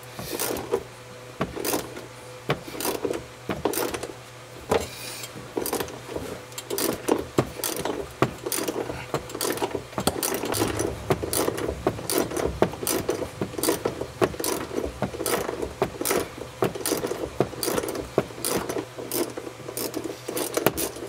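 Hand ratchet clicking in short, uneven runs, a few clicks a second, as it turns out a long, fine-thread small bolt.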